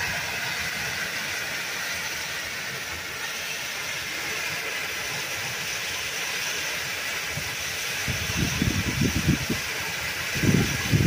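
Heavy downpour: a steady hiss of torrential rain on the yard. From about eight seconds in, irregular low rumbling buffets break in over the rain.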